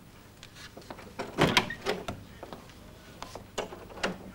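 A room door being opened and closed as someone leaves, its loudest knock about a second and a half in, followed by a few lighter knocks and clicks.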